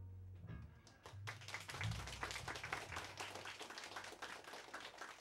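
The band's last low notes die away, and a small audience starts clapping about a second in, the applause going on to the end.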